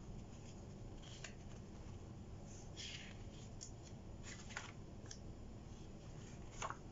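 Pages of a thick, sticker-laden spiral-bound paper planner being turned quickly, one after another: a handful of soft paper swishes and flicks, the clearest one near the end.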